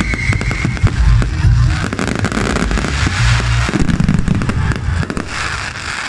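Fireworks display in full volley: booming shell bursts and sharp bangs in quick succession. A whistling firework trails off in the first half second, and dense crackling from about two seconds in fills the gaps. The barrage thins and grows quieter near the end.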